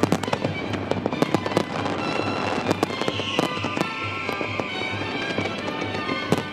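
Fireworks display: a dense, irregular run of sharp bangs and crackles from many shells bursting at once, with music playing underneath with a steady pulsing beat.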